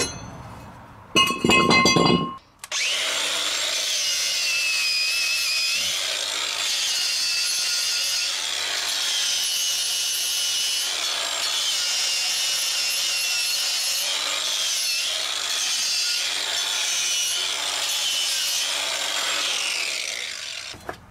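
A knock with a brief metallic ring. Then a handheld power tool runs steadily under load for about eighteen seconds, its high whine wavering up and down.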